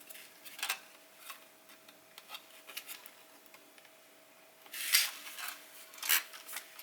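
Scattered small clicks and taps from a compact camera's plastic body and small hand tools being handled during disassembly, with a louder burst of clicking and scraping about five seconds in and another tap a second later.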